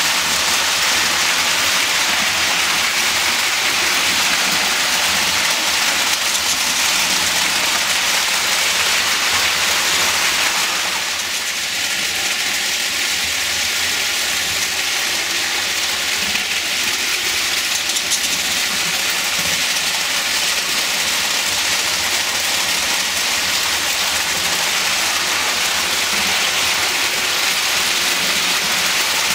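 Lionel toy trains running on three-rail track: a steady rushing clatter of wheels and motors, easing slightly about eleven seconds in.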